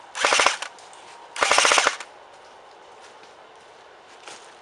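Airsoft electric gun (AEG), an L85-style rifle, firing two short full-auto bursts of about half a second each, about a second apart, the rapid mechanical rattle of the gearbox cycling with each shot.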